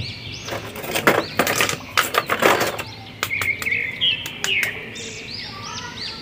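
Clear plastic blister tray crackling and clicking as a small action figure is handled and pulled out of it, with short high chirping tones in the second half.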